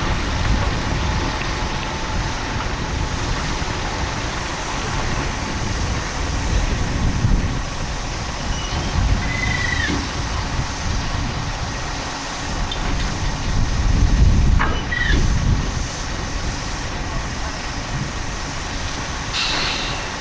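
Wind buffeting the microphone over a steady low rumble from a large vehicle, with a couple of short high chirps about halfway through.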